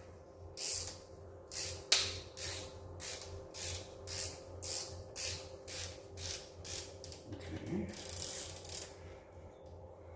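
Hand ratchet clicking in repeated short strokes, about two a second, as a loosened exhaust manifold bolt is backed out of a 5.9 Magnum V8's cylinder head.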